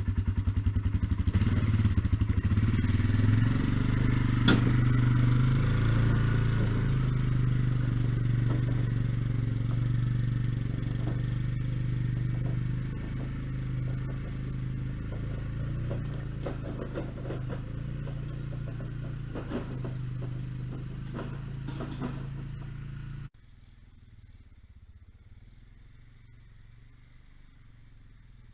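Quad (ATV) engine running as it pulls a log trailer, a steady low drone that slowly fades as it moves away, with scattered knocks and rattles. About 23 seconds in it cuts off suddenly to a much quieter background.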